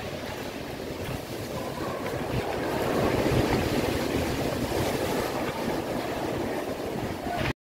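Sea surf washing against a rocky shore, with wind buffeting the microphone; it swells about three seconds in and cuts off suddenly near the end.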